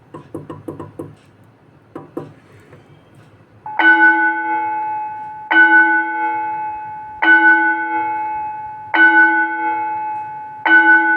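School Bell Pro electronic school bell playing its bell tone. Starting about four seconds in, it rings five strikes about 1.7 seconds apart, each a bright, multi-toned chime that fades until the next.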